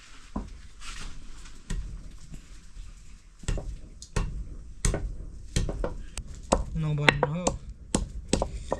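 A knife chopping food, sharp knocks at an uneven pace that start about three and a half seconds in and come roughly twice a second. A brief voice is heard about seven seconds in.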